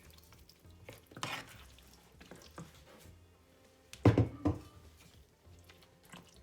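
Cooking utensils knocking and clattering against a pot or pan, with a few scattered light knocks and one heavy knock about four seconds in.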